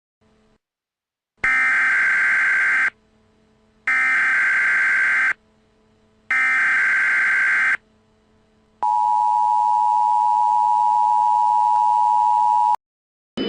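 Emergency Alert System tones: three identical bursts of screeching digital SAME header data, each about a second and a half long with a second's gap between them, then the steady two-tone EAS attention signal held for about four seconds. Together they are the start of an emergency alert broadcast.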